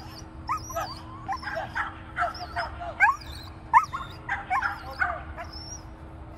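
Small dog yapping excitedly in quick, high-pitched barks, two or three a second and many rising sharply in pitch, while running an agility course at full speed.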